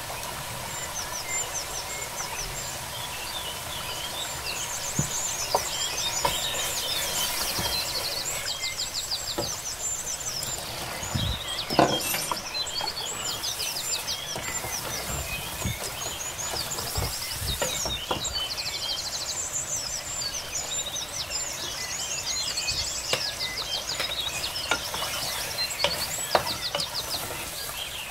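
A wooden spoon stirring and scraping a thick onion-tomato masala in an aluminium pot, with scattered knocks and one louder thump about twelve seconds in as raw chicken pieces go in. Birds chirp and trill throughout.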